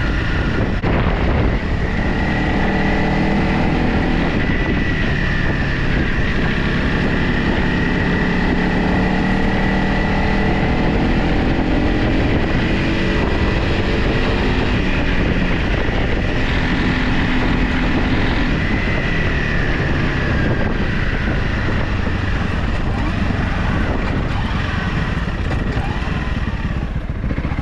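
Dirt bike engine running under way, its pitch rising and falling with the throttle, with wind rushing over the microphone.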